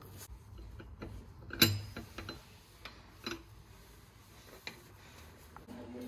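Trigger spray bottle spritzing cleaner onto an oven's glass door: a few short sprays with trigger clicks, the loudest about one and a half seconds in and another about three seconds in.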